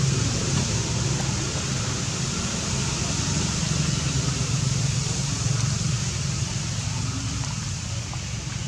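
Steady wind rumble on the microphone under an even hiss.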